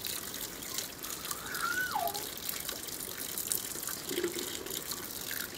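A thin stream of running water splashes onto hands and potatoes over a steel pan as the potatoes are rubbed clean by hand. A short call that slides down in pitch sounds about a second and a half in.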